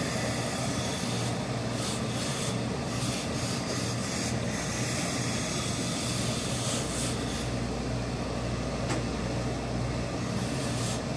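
Hose-fed steam iron pressing wool suit trousers: the iron slides over the cloth against a steady mechanical hum, with short hisses of steam every few seconds.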